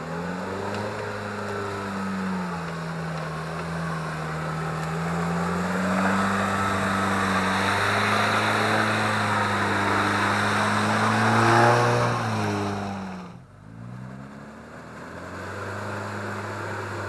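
Off-road 4x4's engine working under load through a boggy stretch, its pitch rising and falling as the throttle changes, with a rushing noise swelling alongside it in the middle. About thirteen seconds in the engine drops off sharply, then picks up again at a steady pitch.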